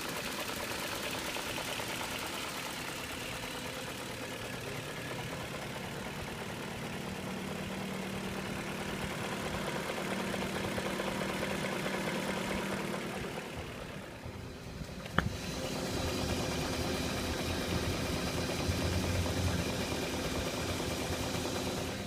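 2001 BMW 540i's 4.4-litre V8 idling warm with a knocking noise whose source the owner cannot find, even with a new timing chain tensioner fitted and no plastic debris in the oil pan. A single sharp click stands out about fifteen seconds in.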